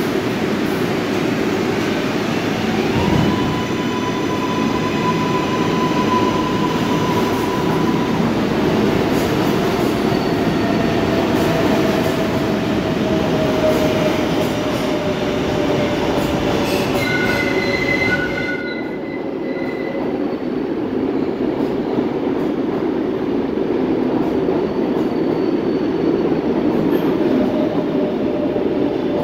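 R142A subway train pulling out and running past: a steady rumble of wheels on rail, with the propulsion's whine rising in pitch about three seconds in and then holding. Brief high wheel squeals come a little past the middle.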